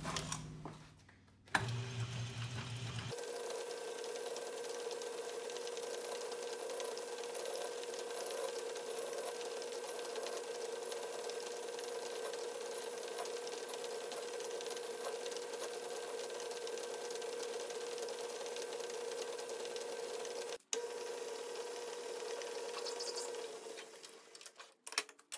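Small metal lathe running with its four-jaw chuck spinning: a steady motor whine, briefly cut off about twenty seconds in.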